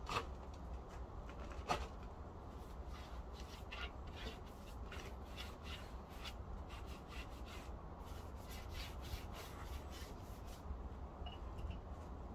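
Paintbrush stroking wood stain onto rough OSB board: a run of short, repeated rubbing strokes, about two or three a second, after two sharp knocks in the first two seconds.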